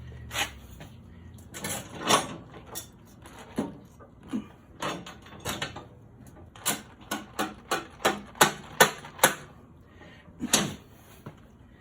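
Sharp, irregular metal clicks and knocks of hand tools and the loosened skid plates on an Ariens snowblower as the plates are adjusted, coming quicker in a run of about a dozen taps near the middle.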